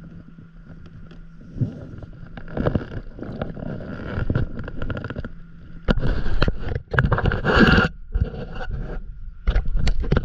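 Wind buffeting the microphone and water slapping against an inflatable paddleboard, with scattered knocks and scrapes from handling gear on the board. The rumble grows much louder about six seconds in.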